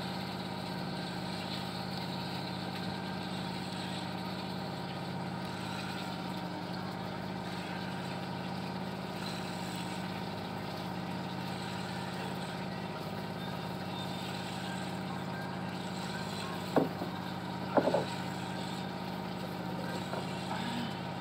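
An engine idling steadily, a constant hum with several steady tones. Near the end come two short knocks about a second apart.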